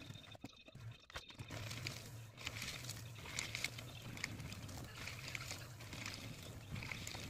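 Electric paper shredder running as sheets are fed in and cut: a steady motor hum with the rasp of paper being shredded, starting about a second and a half in after a few clicks of paper handling.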